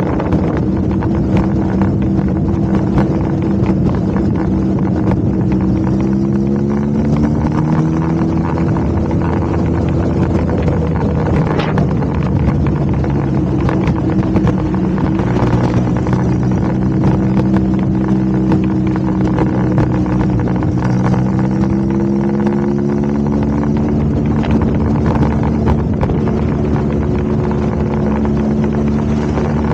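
Motorcycle engine running under way with wind noise, its pitch rising smoothly twice, about six seconds in and again around twenty seconds, as it picks up speed.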